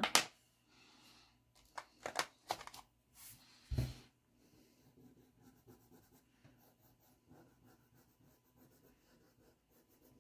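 A few sharp clicks and a dull thump in the first four seconds as pastel sticks are handled on the table, then faint, quick scratching strokes of a pastel colouring on drawing paper.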